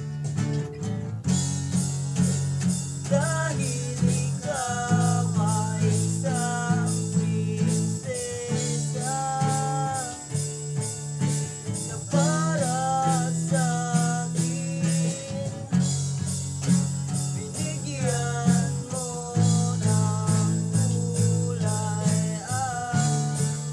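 Two acoustic guitars strummed in a steady rhythm, with a fast jingling percussion on the beat and a male voice singing the melody over them.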